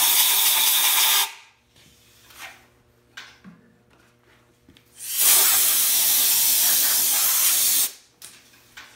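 Compressed-air blow gun blasting into a hole saw to clear out chips and the cut slug: a long hiss ending about a second in, then a second, steady hiss of about three seconds starting about five seconds in.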